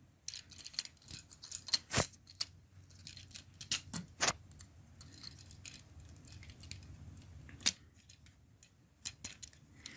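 Plastic parts of a Transformers action figure being swung, folded and snapped into place by hand: a run of small clicks and rattles, with a few sharper clicks about two, four and eight seconds in.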